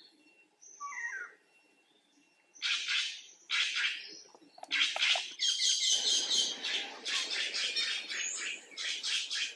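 High chirping animal calls: a short falling call about a second in, then a few separate rasping chirps, running together into a fast continuous chatter from about halfway. A low noise lies under them through the second half.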